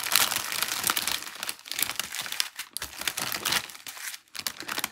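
Clear plastic sheeting crinkling and rustling as it is handled and folded, with a brief lull near the end.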